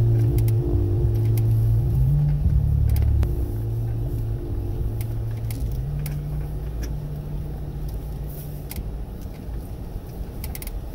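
Off-road 4x4's engine running at low, shifting revs while crawling over a rocky dirt trail, with scattered light clicks and knocks. It grows quieter through the second half.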